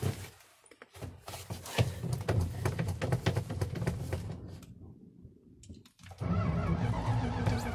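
A gasoline engine fuelled with diesel being cranked with the key: a click, then for about three seconds the engine turns over roughly and unevenly before fading. About six seconds in a louder, steady engine sound sets in.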